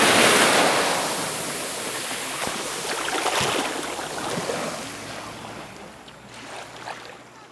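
A small wave breaking on a sandy beach and washing up the shore. The loud hiss of the surf dies away steadily into gentle lapping.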